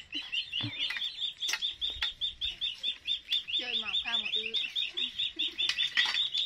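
A small animal's high-pitched chirping call, repeated rapidly and evenly at about eight chirps a second, typical of a frog or insect calling in the farmyard background.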